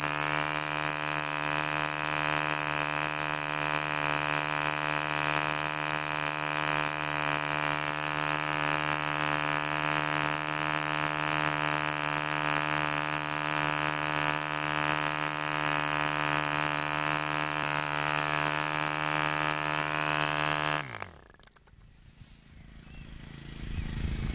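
DC Wildcat 5cc model diesel engine (1949) running steadily on a test bench with its propeller, turning only about 4600 rpm. About 21 seconds in it cuts out, the pitch dropping quickly as it winds down to a stop.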